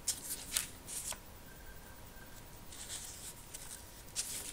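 Paper pages of a handmade scrapbook album rustling as they are turned and handled, in a series of short crisp rustles.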